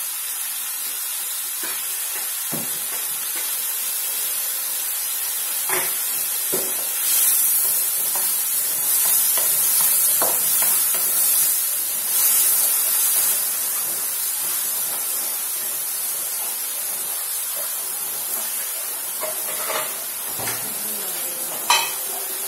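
Mushrooms frying in a nonstick wok with a steady hiss. The sizzling grows louder for several seconds in the middle while the mushrooms are stirred with a wooden spoon, which knocks and scrapes against the pan now and then.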